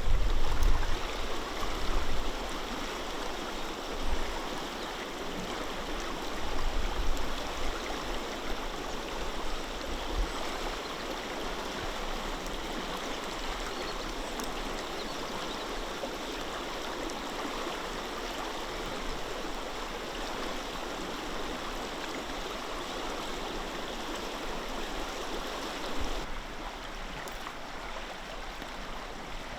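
River water rushing steadily over rocks. There are some low bumps on the microphone in the first several seconds, and the sound gets slightly quieter near the end.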